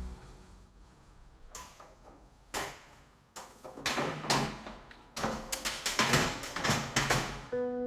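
Irregular sharp knocks and clatters, like hard objects being handled or set down: a few spaced ones at first, then a quicker run of them in the second half.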